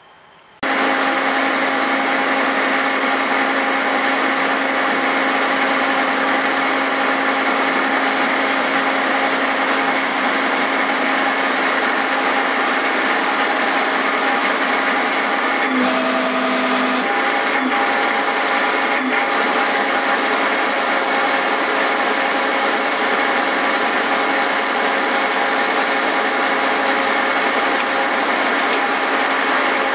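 Cincinnati horizontal milling machine running with a form cutter milling splines into a 4340 steel axle shaft: a steady machine noise with a few held tones, starting about half a second in and shifting briefly about halfway through.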